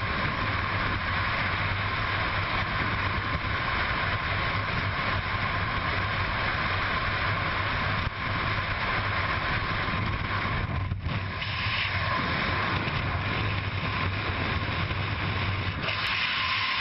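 Freefall wind rushing steadily over the microphone of a skydiver's camera.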